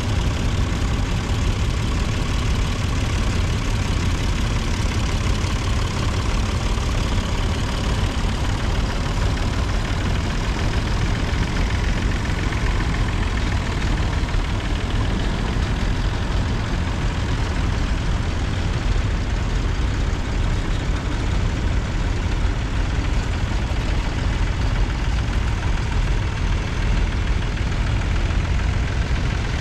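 Engines of vintage farm tractors, a blue Ford and red Massey Fergusons among them, running steadily as they drive past one after another in a procession.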